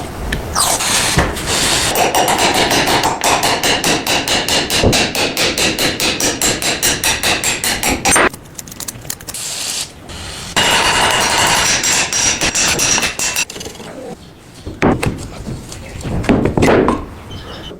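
Rapid, repeated hammering, a fast even run of blows at about five a second, broken by short pauses and stretches of rougher working noise.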